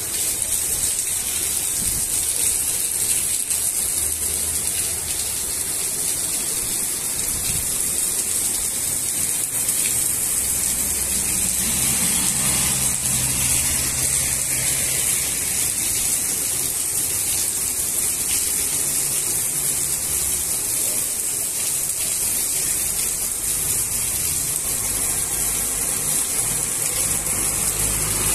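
Steady heavy rain falling on wet paving and a flooded road, a constant high hiss.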